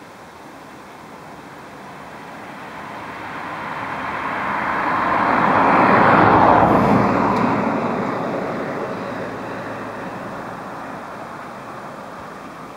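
A car passing by: its tyre and engine noise swells steadily to a peak about halfway through, then fades away.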